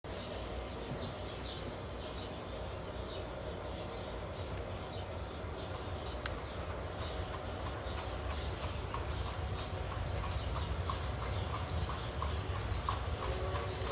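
Insects chirping steadily in an even pulse of about three chirps a second, over a low rumble. From about halfway through, the regular clip-clop of a horse's hooves comes in and grows louder.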